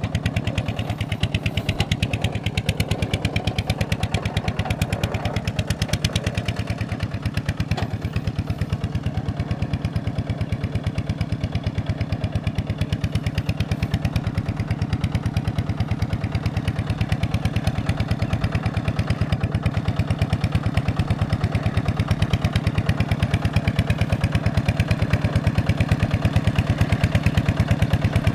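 Kubota diesel engine running steadily at a constant speed, with a rapid, even firing beat.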